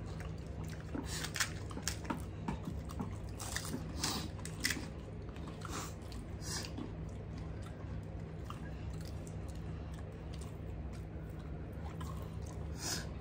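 People eating gol gappa (pani puri): the crisp hollow puri shells cracking as thumbs break them open, with chewing and small wet squishes, heard as scattered short crackles.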